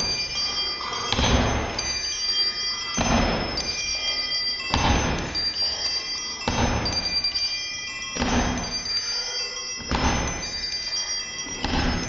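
Bicycle bells ringing together in an experimental ensemble piece, many high tones overlapping and held. A noisy swell with a low thud comes regularly, seven times, a little under two seconds apart.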